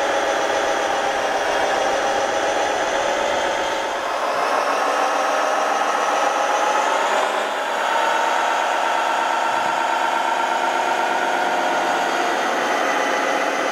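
Remote-control model heavy-haul truck running, a steady engine-like drone whose pitch shifts about four seconds in and again near eight seconds.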